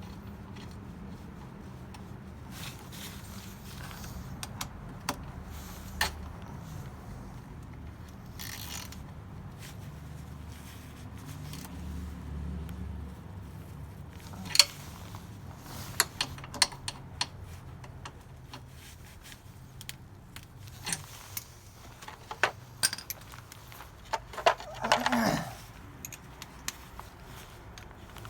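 Metal hand tools clinking and a socket wrench ratcheting in short bursts while the drain bolts of a motorcycle engine are worked on, with a brief scraping sound near the end.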